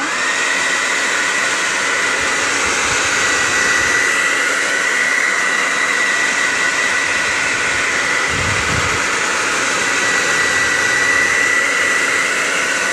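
Handheld hair dryer blowing hot air onto fresh chalk paint to dry it. Its motor whine rises as it speeds up at the start, then it runs steadily with a loud rush of air and a high whine.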